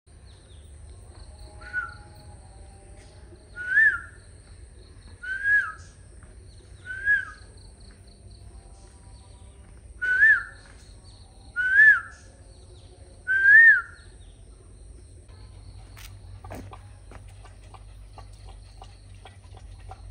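A bird in a coconut palm calling: seven loud, clear whistled notes, each rising then dropping, one every second and a half to three seconds, with a longer pause midway.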